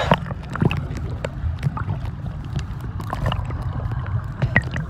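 Underwater sound of a swimming pool picked up by a submerged phone microphone: a muffled low rumble of moving water with scattered small pops and clicks, the higher sounds cut off.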